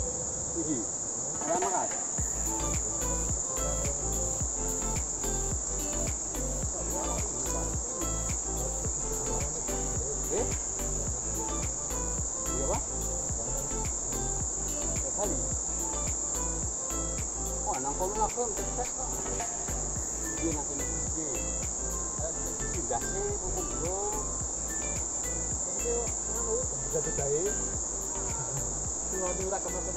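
A chorus of insects drones steadily at a high pitch, over the rush of a fast-flowing river.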